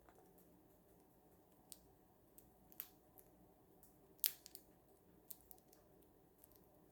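Scattered sharp clicks and crunches, a few seconds apart, the loudest about four seconds in: a cockatiel's beak cracking and nibbling treats.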